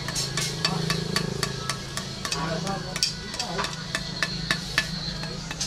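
Rapid, irregular light clicks and scrapes of a small hand tool working on a bolo blade and its wooden handle, over a steady low hum.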